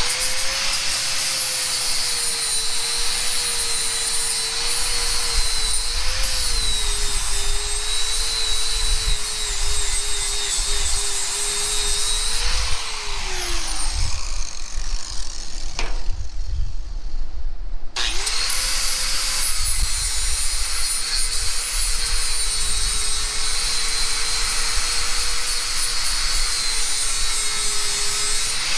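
Handheld electric power tool running under load, its whine sagging and wavering as it bears down on the work with a hiss of grinding or cutting. About twelve seconds in it is switched off and winds down with a falling whine, then it is started again about five seconds later and runs on.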